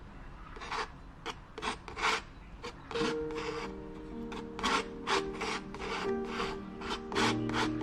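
Metal palette knife scraping and smearing thick acrylic paint across a stretched canvas, in many short, irregular strokes. Soft music with long held notes comes in about three seconds in.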